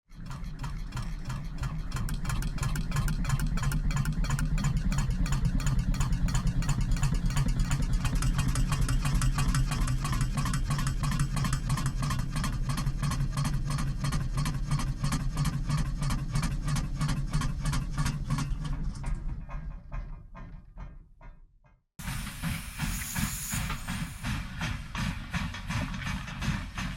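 Steam locomotive chuffing in a quick, even rhythm over a steady low rumble, fading out about twenty seconds in. After a moment of silence, a second take starts suddenly with a loud burst of steam hiss and more chuffing.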